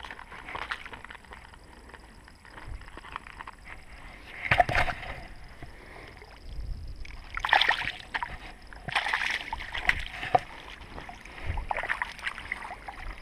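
Traíra (wolf fish) splashing in shallow, weedy water as it is released, in several separate bursts of splashing.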